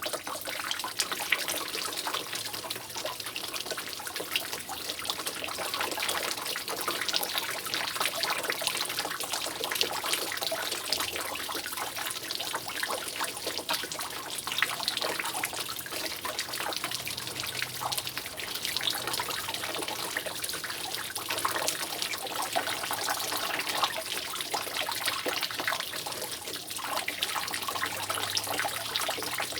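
Water dripping and trickling from a roof: a steady, dense patter of many small drops over a constant trickle, with no pause.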